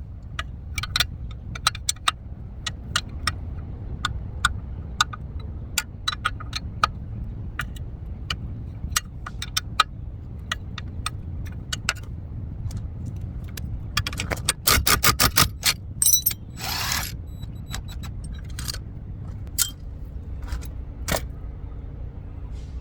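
Metal tools clicking and clinking against suspension parts while a ball joint is fitted, with scattered sharp clicks throughout and a quick run of clicks about two-thirds of the way in, over a steady low rumble.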